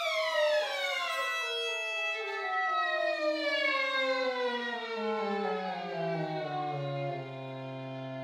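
Violin and cor anglais music warped by a real-time speed shifter: held instrument tones slide steadily down in pitch over about seven seconds, like a recording slowing down, then settle on a low sustained note near the end.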